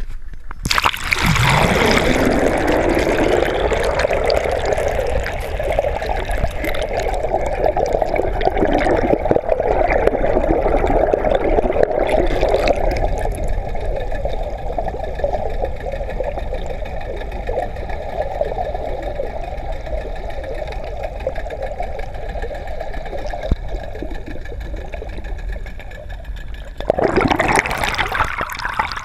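Muffled underwater sound of water rushing around a boat hull, with a steady drone under it, heard through a submerged camera housing. There is a splash as the camera goes under about a second in, and another as it comes back out near the end. A faint whine joins the drone about halfway through.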